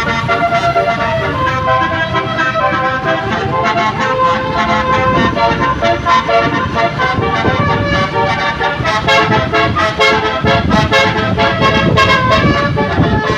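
Basuri musical horn on a tour bus playing a tune of quick changing notes without a break, over the rumble of the bus and traffic.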